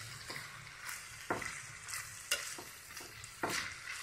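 Metal spoon stirring and scraping flat beans (chikkudukaya) frying in oil in a stainless steel pan, over a soft sizzle. Three sharper scrapes come about a second apart, the first just over a second in.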